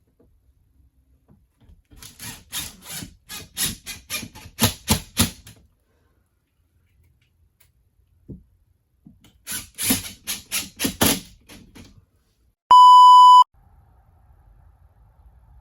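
A hand tool scraping through drywall in two runs of quick back-and-forth strokes, about three to four a second. Near the end comes a short, loud electronic beep.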